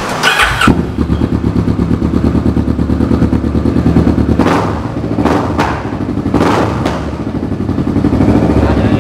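Kawasaki Vulcan cruiser with a custom LeoVince exhaust, its parallel-twin engine (shared with the ER-6) started on the electric starter and catching within a second. It settles into an idle, gets four quick throttle blips in the middle, then is held at higher revs near the end.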